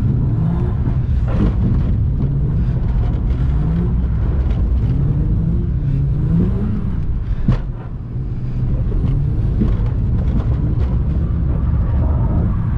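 Ford FG Falcon engine heard from inside the cabin, revving up and down as the driver works the throttle through a slide. About seven and a half seconds in there is a single sharp click, followed by a brief dip in engine noise.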